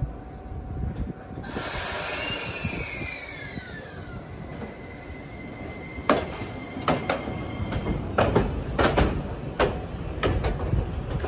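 Iyotetsu 5000-series low-floor tram (car 5004) moving slowly through a station track layout while shunting. About a second and a half in a high whine starts and falls in pitch. From about six seconds on comes a run of sharp clacks as the wheels cross rail joints and points.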